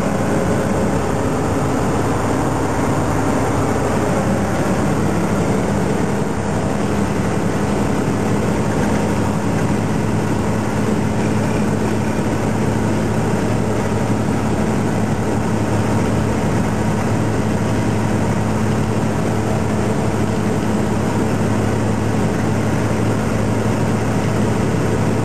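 Tractor-trailer diesel engine and road noise running at a steady speed: an unchanging low drone with a steady hum under it.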